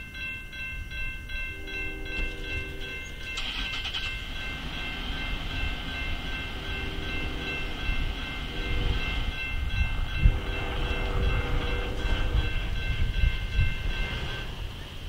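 Freight train horn sounding the grade-crossing signal, long, long, short, long, over a grade-crossing warning bell ringing about three times a second, with the low rumble of the train. The bell stops near the end.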